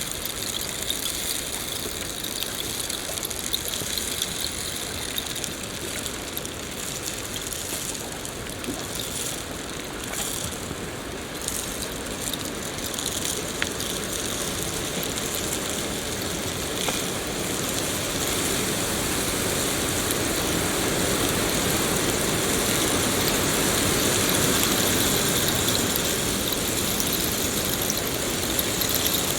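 Steady rain falling: a dense, even hiss with a few faint drop ticks, swelling slightly louder in the second half.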